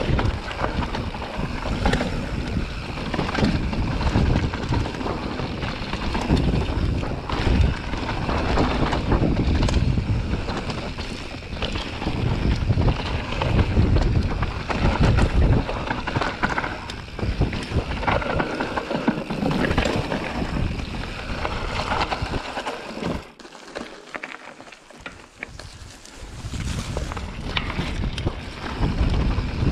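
Ride noise from a Transition Sentinel mountain bike descending a dirt forest trail: wind buffeting the GoPro microphone and tyres rolling over the dirt, with frequent rattles and knocks from the bike over the rough ground. About three-quarters of the way through, the low rumble drops away for a few seconds before picking up again.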